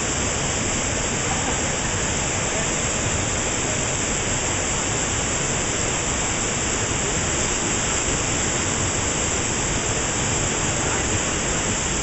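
Waterfall pouring down a rock chute into a plunge pool: a steady, even rush of falling water.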